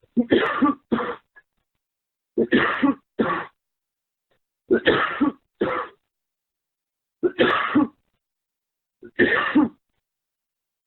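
A man coughing or clearing his throat in five short fits, each a longer hack followed by a shorter one, about every two and a half seconds, heard over a phone voicemail line.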